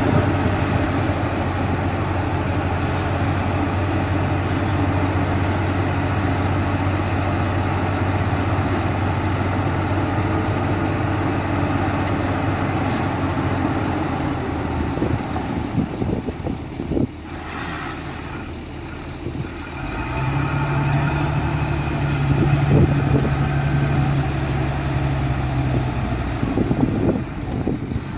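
Heavy diesel machinery running steadily. The low engine note fades away about two-thirds of the way through, and a few seconds later a second, higher-pitched diesel engine takes over.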